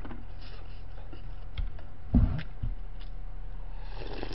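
Small clicks and a dull knock of tableware about two seconds in, then near the end a slurp as broth is drunk straight from a bowl held to the mouth, over a steady low hum.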